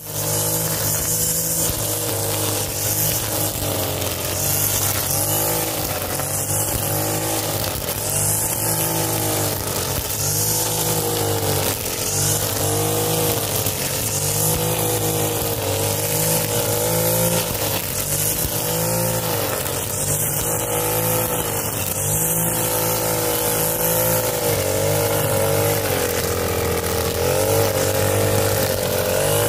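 Backpack brush cutter's small petrol engine running at high speed while its blade cuts standing crop and grass, the engine note rising and falling every second or two as the blade takes and clears the load.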